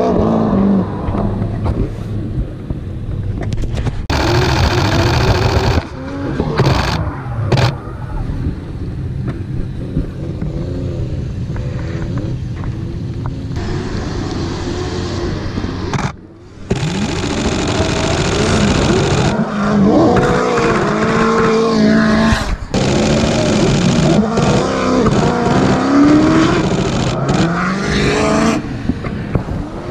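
Drift cars' engines revving hard through drift runs, the pitch climbing and falling again and again as the drivers work the throttle. The sound cuts out abruptly a few times, most clearly about halfway through.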